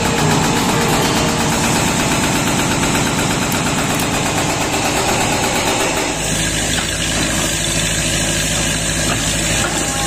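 Hydraulic breaker on a Volvo excavator hammering concrete in a rapid, steady stream of blows. The hammering stops about six seconds in, leaving the excavator's diesel engine running.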